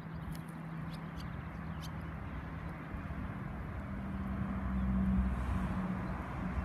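Outdoor ambience: a steady rushing wash, as of the river flowing past, under a low engine-like hum that swells about four to five seconds in. A few faint high chirps sound in the first two seconds.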